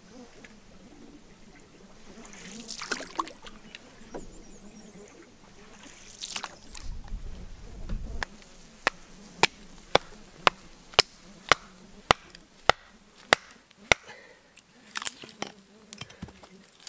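Kindling being chopped for a campfire: a steady run of about ten sharp knocks, roughly two a second, followed by a few irregular ones.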